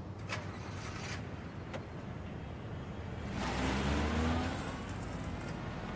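Car engine running steadily, then a car drives past about halfway through, the engine note rising and getting louder before easing off. A few light clicks come before it.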